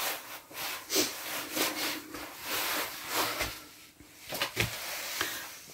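Split firewood being laid into the firebox of a round steel sauna stove: a series of irregular wooden knocks with scraping and rubbing between them.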